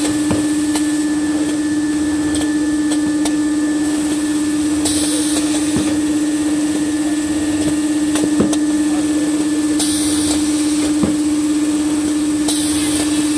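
High-speed automatic band saw maxi roll paper cutting machine running with a steady, loud hum. A hiss of about a second comes three times, and a few sharp clacks sound as the rolls are cut and moved on.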